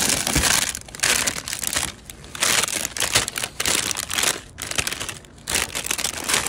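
Plastic bags and packaging crinkling and rustling in repeated bursts as they are rummaged through and items are pulled out by hand.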